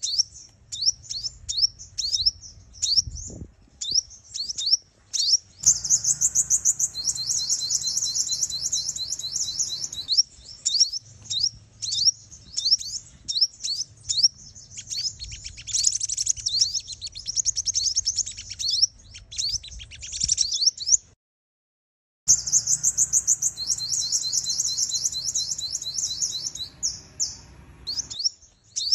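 Female sunbird calling as a trapping lure: sharp high chirps and fast trilled runs, with a second-long gap of silence about 21 seconds in.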